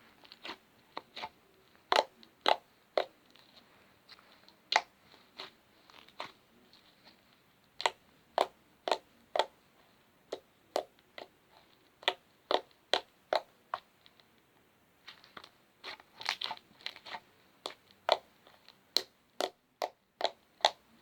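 Slime being squeezed and poked by hand, giving a run of sharp, crackly clicks and pops at an uneven pace, with a short pause about two thirds of the way through.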